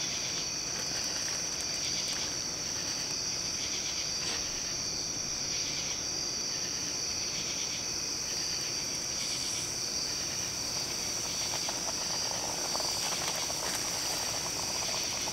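Insects trilling steadily on one high pitch. From about eleven seconds in, hot oil sizzles and bubbles as floured pieces of fish are dropped into the fryer pot.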